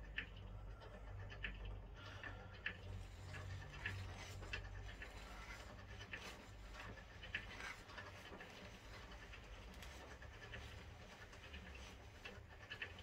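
A Class 153 unit's destination blind being wound through its destinations, the blind mechanism giving irregular clicks over a low steady hum.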